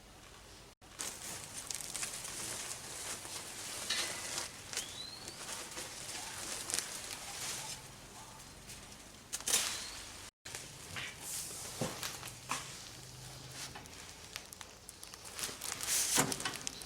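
Rustling and crackling of handling, with scattered sharp clicks and knocks, as the winter melons are harvested from the vine.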